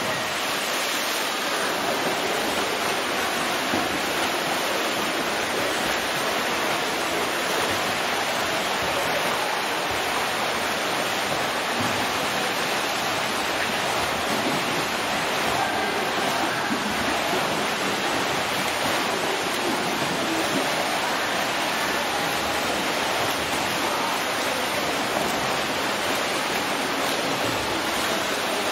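Racing swimmers hitting the water off the blocks, then swimming freestyle: steady splashing and churning pool water.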